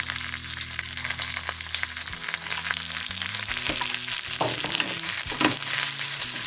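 Oil sizzling steadily in a pan as halved onions and garlic cloves fry with oregano and bay leaves. From about four seconds in, kitchen tongs scrape and knock against the pan a few times while turning the onions. Soft background music with low held notes underneath.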